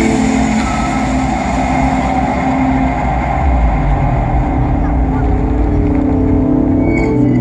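The projection show's cinematic sound-effects soundtrack: a loud, steady rumble with low held tones underneath.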